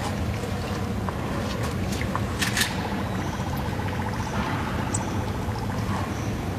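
Small submersible water pump running in a bucket as the cooling pump for a K40 laser cutter, with a low steady hum and water pouring and splashing back into the bucket from the hose.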